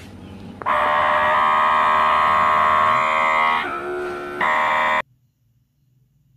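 Miyako AWD-200BK electric gallon-bottle water pump switched on with its power button, its small motor running dry (not yet on a bottle) with a loud, steady buzzing whine. The pitch dips lower and quieter briefly near the end, and the pump cuts off suddenly about five seconds in.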